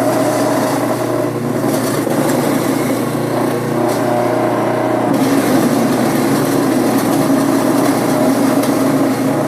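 Motor-driven Whiz Bang apple grinder running steadily with a constant hum, chewing apples into mash with a rough, continuous grinding noise.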